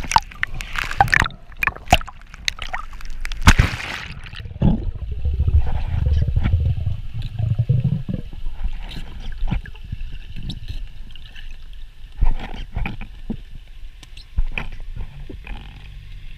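Choppy seawater splashing and sloshing at the surface as a freediver ducks under. About four seconds in, the sound turns muffled and underwater, with gurgling, a low rumble for a few seconds and scattered sharp clicks.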